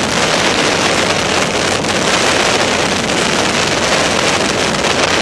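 Bass boat under way: a steady, loud rush of wind and water noise with wind buffeting the microphone. It cuts off suddenly at the end.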